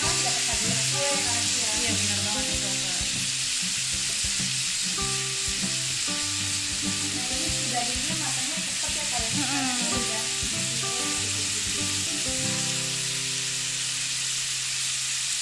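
Rolled beef steaks sizzling steadily as they fry in a hot pan, with background music of held notes.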